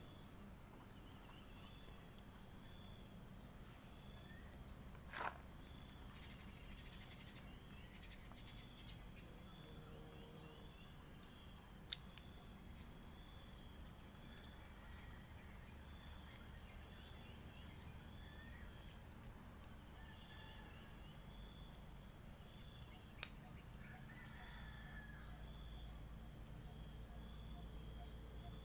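Faint, steady high-pitched chorus of insects chirping, with a repeating chirp about every second and a half. Three short, sharp clicks break in.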